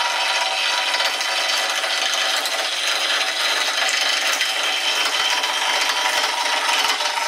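Wood lathe turning a wooden handle blank while a hand-held turning tool cuts into it, a steady rough scraping and chattering of the tool chewing off shavings over the hum of the spinning lathe.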